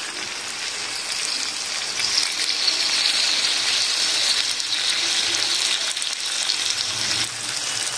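Chicken and bitter gourd curry sizzling in a hot wok as milk is poured into it; the sizzle grows louder about two seconds in and drops back shortly before the end.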